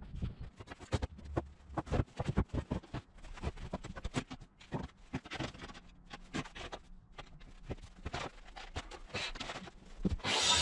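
Rapid, irregular knocks, clicks and rubbing from tools and wooden boards being handled on a workbench, ending with a short, louder burst of rushing noise about ten seconds in.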